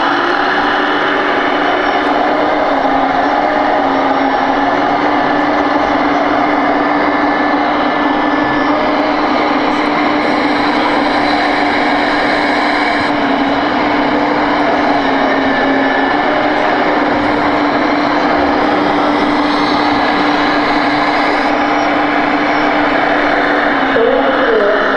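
Sound module of a radio-controlled Hitachi Zaxis excavator model playing a steady diesel engine sound, one held pitch that dips slightly now and then. A constant hum of visitors' voices lies underneath.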